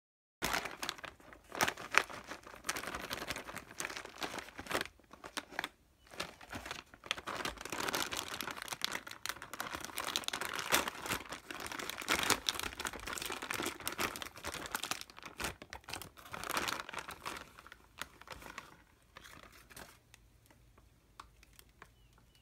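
White plastic mailer and plastic wrapping crinkling and tearing as the mailer is ripped open and the wrapped item pulled out, with many sharp crackles; the rustling dies away near the end.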